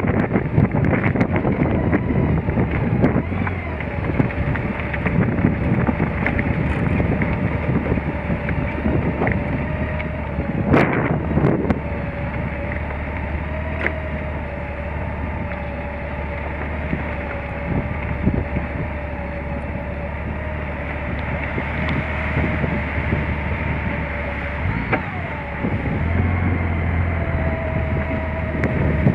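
Motorcycle engine running steadily at low speed over a dirt track, with wind buffeting the microphone. A constant whine holds above the engine note, and the engine gets louder about three seconds before the end.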